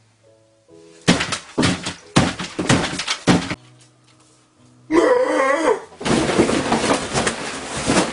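A run of loud thumps, then a man's brief wavering bellow about five seconds in, followed by a long crashing clatter as a table set with plates and cups is rammed over.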